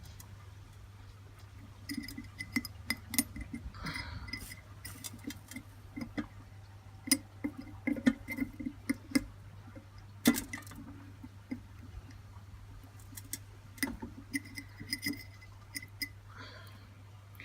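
Irregular small metallic taps and clinks as pliers and tools handle small pieces of copper while they are pressed down and soldered, over a steady low hum.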